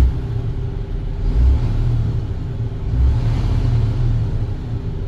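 MAN TGS 26.360 truck's six-cylinder diesel engine running with a low, steady rumble, swelling briefly about a second and a half in and again about three seconds in.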